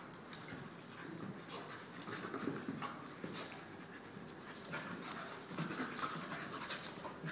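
A bull terrier and a pit bull puppy play-fighting: quick panting with irregular sharp clicks and scuffles throughout.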